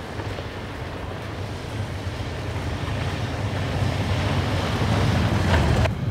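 Skoda Superb Sportline driving past on a snow-covered road: a steady rush of tyre and engine noise that grows louder as the car approaches, then cuts off abruptly near the end.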